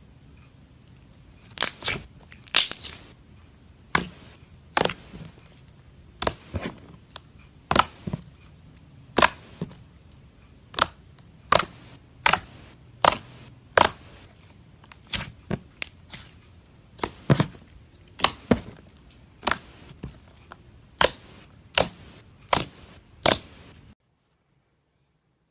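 Glossy slime being pressed and poked, giving a run of sharp clicks and pops, about one or two a second, that stop suddenly near the end.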